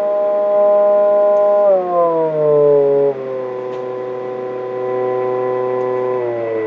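Low, buzzy audio test tone from a signal generator, used to modulate a CB transceiver during alignment. It holds steady, then drops in pitch about two seconds in and again near the end as the generator's frequency knob is turned down.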